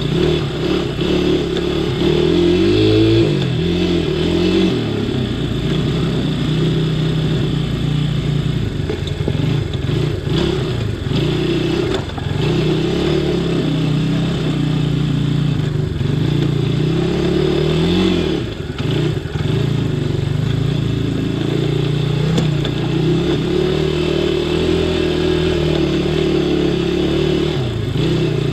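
ATV engine running at low speed along a rough woods trail, its pitch rising and falling as the throttle is opened and eased off, with a few knocks and rattles from the machine over the ground.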